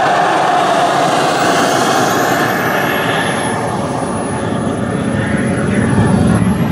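Turbine engines of a large radio-controlled F-4 Phantom model jet running as it rolls along the runway: a steady jet roar with a thin high whine that slowly rises and falls in pitch, the low rumble swelling near the end.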